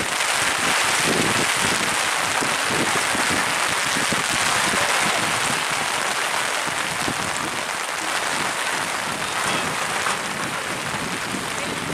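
Heavy rain falling: a steady hiss of downpour.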